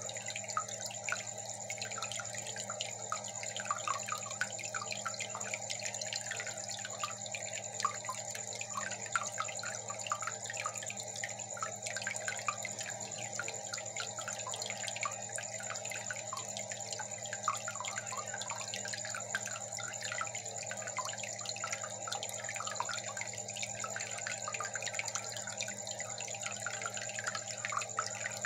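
Aquarium filter running: water trickling and bubbling steadily over a low, even hum.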